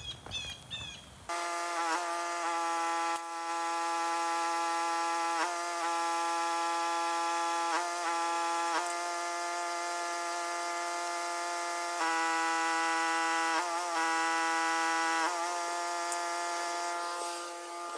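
Pressure washer running with a steady, high drone that starts abruptly just over a second in; its pitch dips briefly every few seconds.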